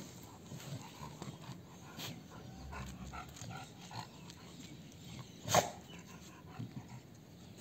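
Chow chow puppies playing together: faint sounds of their movement, and one short, sharp bark about five and a half seconds in.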